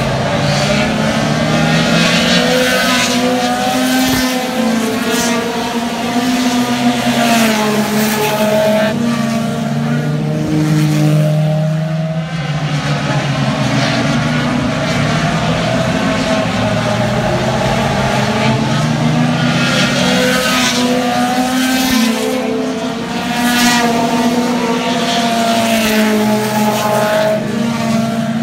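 A pack of short-track race cars running laps at speed, several engines together, their pitch rising and falling in waves as the cars come past again and again.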